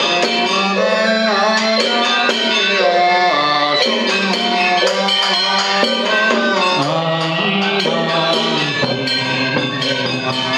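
Vietnamese Buddhist ritual praise chant (tán), sung by a male voice in long held notes that bend in pitch, over traditional instrumental accompaniment with regular percussion strokes.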